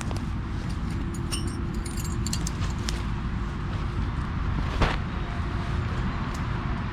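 Steady rumble of road traffic from the adjacent dual carriageway, with light metallic clinks of camping gear during the first few seconds and a single knock about five seconds in.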